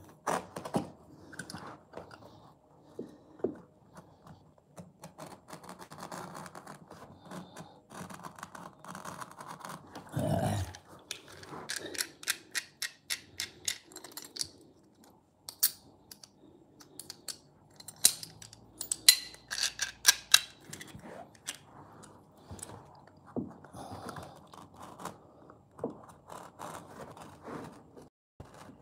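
A carpet knife trimming a new carpet against the wall: short scratchy rasps of the blade through pile and backing, mixed with clicks of the knife being handled. A dull knock comes about a third of the way in, and a run of sharper, louder clicks about two-thirds in.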